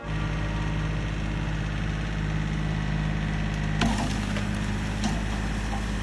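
Compact tractor engine running steadily under load as it pushes into a tree, with wood cracking sharply about four seconds in and again about a second later.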